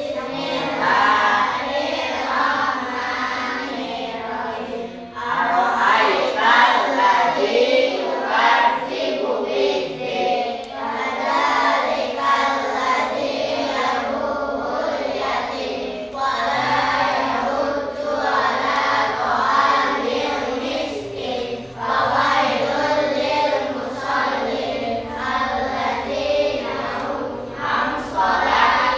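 A class of young schoolchildren singing together as a group, phrase after phrase with brief pauses between lines.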